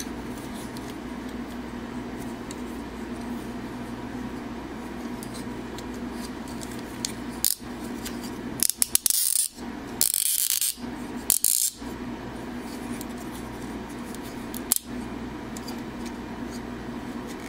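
Plastic parts of a 52Toys BeastBox BB-38 Gunpowder transforming figure clicking, rattling and scraping as sections are folded and tabbed together. There is a cluster of louder scrapes and clicks from about halfway through, then a single sharp click near the end, over a steady low hum.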